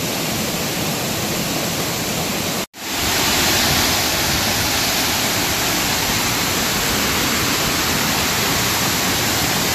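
Rushing floodwater: a swollen creek running fast over rocks. It breaks off abruptly for an instant about a third of the way in, then comes back as the louder, hissier rush of water pouring over a dam spillway.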